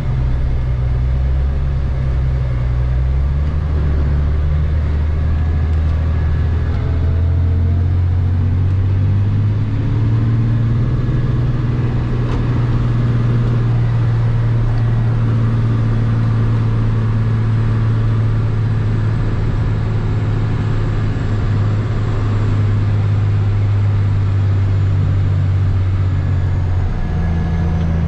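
Plow truck's engine running under load, heard from inside the cab, its deep note rising a few seconds in and again around ten seconds, then holding steady.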